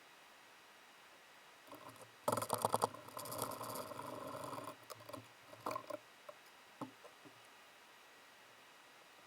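Hand tools and small metal parts being handled during engine work: a burst of rapid clicking and rattling about two seconds in that lasts a couple of seconds, then a few separate clicks.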